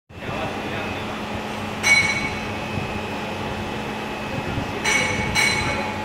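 Roller-cleaning robot running over the fused-silica furnace rollers: a steady mechanical rumble with a low hum, broken by three short, high-pitched metallic squeals, about two seconds in and twice near the end.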